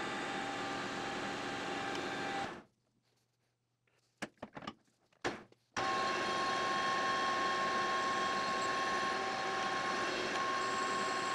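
Precision Matthews PM-1440GT metal lathe running, a steady mechanical hum with steady whine tones. About two and a half seconds in the running sound drops out to near silence, broken by a few sharp clicks. About three seconds later the running starts again abruptly, now with a strong, steady high whine.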